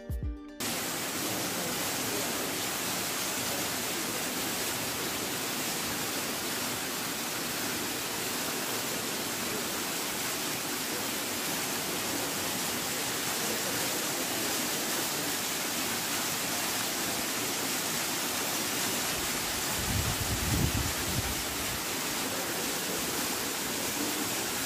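Tall waterfall plunging from a cliff into a pool: a steady, even rush of falling water. A brief low rumble comes in about twenty seconds in.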